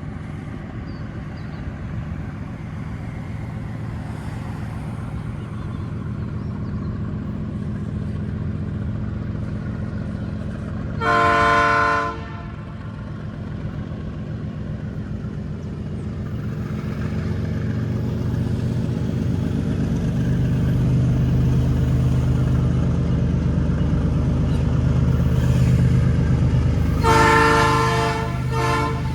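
Diesel freight locomotive running hard under load on an uphill climb, its engine drone growing louder from about halfway through. Its horn sounds twice: a blast of about a second near the middle, and a longer one, briefly broken, near the end.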